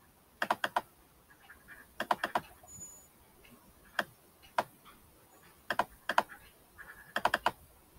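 Sharp clicks from a computer mouse and keyboard being worked, coming in short clusters of two to four with pauses between.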